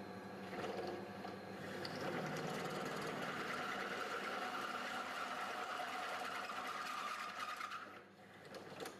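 Stick-welding arc crackling and sizzling steadily as a weld is run on steel pipe. It stops about eight seconds in.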